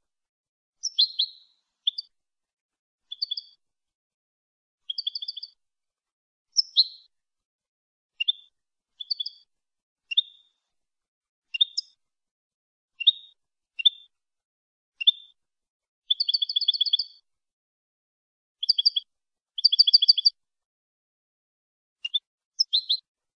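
European goldfinch singing: short separate phrases of high twittering notes with clean silence between them, and two longer rapid trills in the second half.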